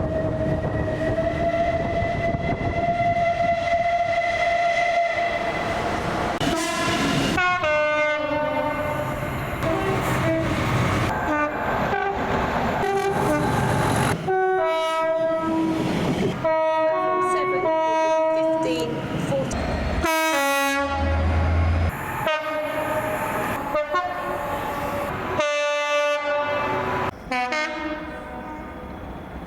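A series of British train horns cut one after another. First comes one long, steady horn note for about six seconds, then a string of short two-tone horn blasts with high and low notes alternating, over the rumble of moving trains.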